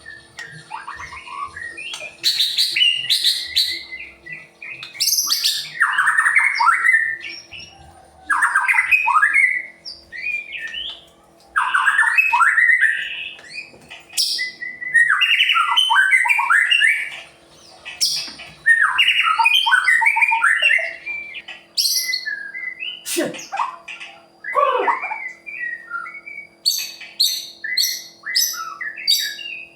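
White-rumped shama (murai batu) singing loud phrases of varied song, each a second or two long with short pauses between, mixing whistles with harsh, rough notes. Past the middle it gives two long downward-sliding whistles, and near the end a quick run of short high chips.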